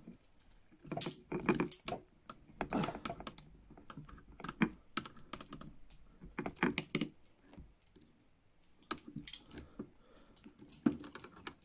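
Steel ASP handcuffs clicking and rattling in irregular clusters as a thin metal shim, the nose wire from an N95 mask, is pushed into the cuff's ratchet to free the bow.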